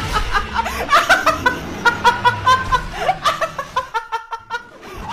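A young woman laughing hard, a string of quick laugh pulses, about four or five a second in the second half.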